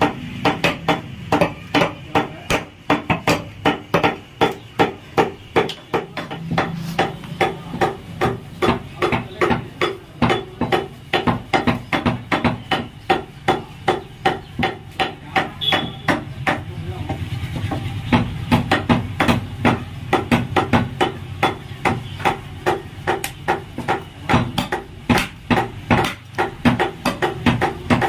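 Heavy butcher's cleaver chopping goat meat and rib bone on a wooden chopping block: quick, regular chops about three a second, with a short let-up about halfway through.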